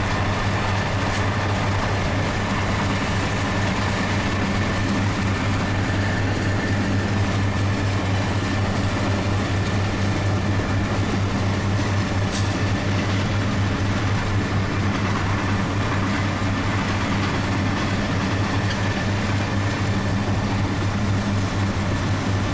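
Union Pacific SD70ACE diesel locomotive, a mid-train distributed power unit, running steadily under power as it rolls along at speed, heard while pacing alongside it. A deep, even hum with a steady higher tone above it.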